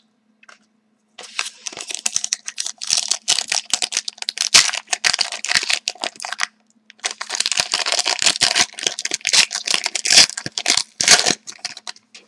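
Foil wrapper of a hockey card pack crinkling and tearing as it is ripped open by hand, in two spells of rapid crackling with a short break between.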